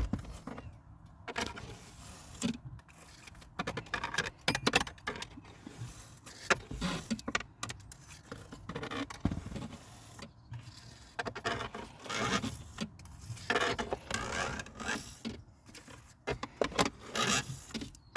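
Pipe cleaner scraping and poking around the bottom of a car's empty plastic cabin-filter housing to gather dust, making irregular scratches and clicks.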